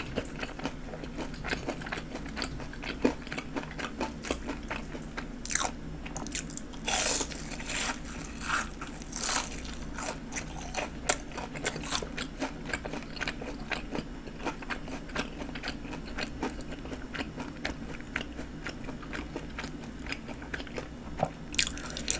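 A person biting and chewing panko-breaded fried jumbo shrimp: the crisp coating crunches in many irregular crackles.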